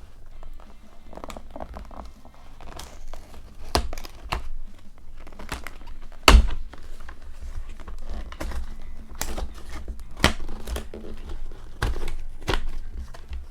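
Cardboard box being pried open and torn along its sides, with paper crinkling and scattered taps and knocks; the loudest knock comes about six seconds in.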